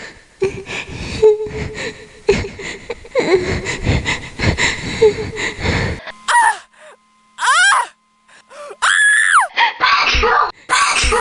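A voice gasping and panting in heavy breaths for several seconds, then a series of short, high cries that rise and fall in pitch.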